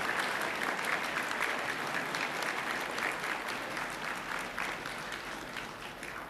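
Audience applauding, a dense patter of many hands clapping that slowly dies down near the end.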